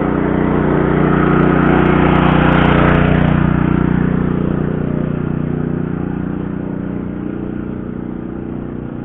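A motor vehicle's engine running steadily as it passes, growing louder to a peak about two to three seconds in and then fading away.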